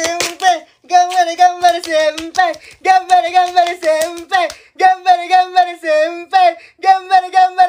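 High-pitched singing voice in short phrases of quick, repeated notes on a simple sing-song tune, with brief pauses between phrases.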